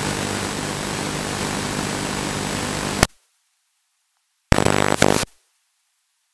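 Hiss and low hum on the audio of the quad's analog FPV video link. It cuts off abruptly about three seconds in as the signal drops out. About a second and a half later comes a short burst of static.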